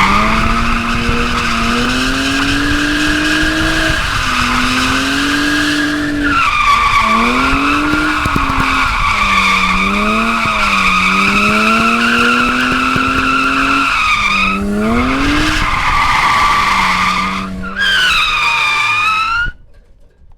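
A car drifting: a sustained tyre squeal over the engine revving, the engine's pitch climbing and dropping as the throttle is worked. The squeal breaks off and restarts a few times, and the sound cuts off sharply near the end.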